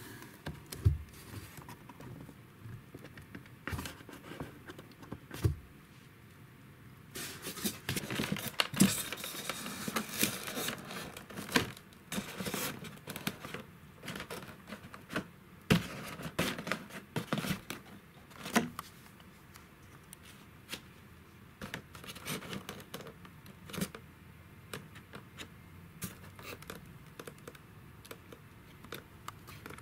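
Hand-handling noise of a thin clear plastic RC car body shell and polystyrene foam spacer blocks: crinkling, rustling plastic with scattered taps and knocks, busiest in a dense stretch of crackling about a quarter of the way in, then sparser.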